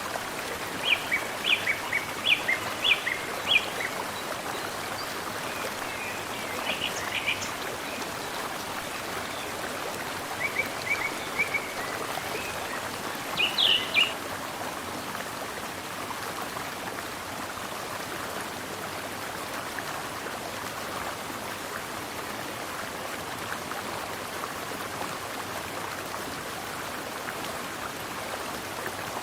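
Mountain stream flowing steadily, with a small bird giving quick series of short chirps through the first half, the loudest call near the middle; after that only the water.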